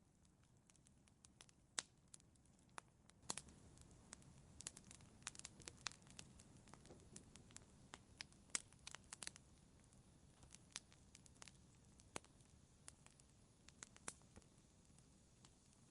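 Wood fire crackling in a fireplace: scattered sharp pops and snaps over a soft low rumble, coming thickest in the middle.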